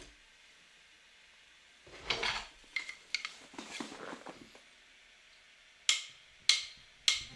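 Quiet handling noise as a henna cone is worked over the foot: short rustling bursts, then three sharp clicks in quick succession near the end.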